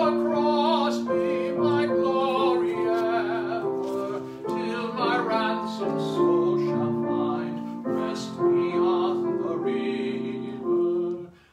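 A hymn sung with vibrato over piano accompaniment, in sustained phrases; the music drops out briefly near the end.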